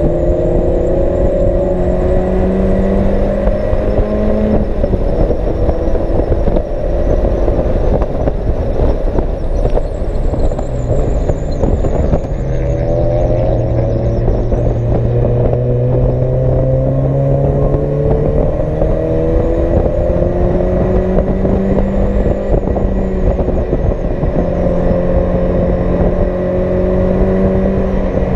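Race car engine heard from inside the cockpit, running hard on track. The revs climb in each gear and fall back at each shift, several times, over a steady rush of road and wind noise.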